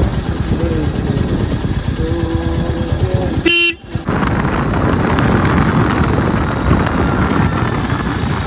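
Wind buffeting and road noise while riding a motorbike. A vehicle horn sounds for about a second around two seconds in. A sharp click and a brief drop in sound come just after.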